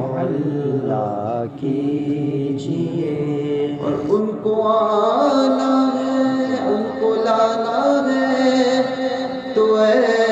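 A voice singing a naat, a devotional Islamic song, in long held notes with bending ornaments between them.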